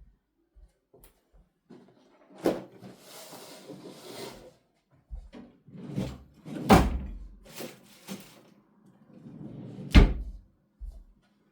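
Three sharp knocks and bumps, about 2.5, 6.7 and 10 seconds in, with rustling and clattering between them: objects being handled and set down.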